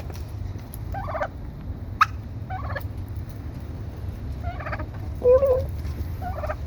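Backyard poultry hens making short warbling calls, about five of them spaced over several seconds, with a sharp click about two seconds in. Low wind rumble on the microphone underneath.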